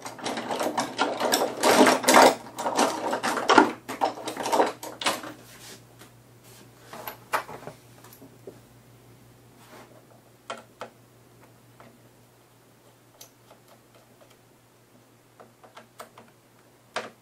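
Hands working the plastic screen bezel of an Acer Aspire One netbook. For about the first five seconds there is a dense run of rapid rubbing and rattling, then only scattered light clicks and taps. A steady low hum runs underneath.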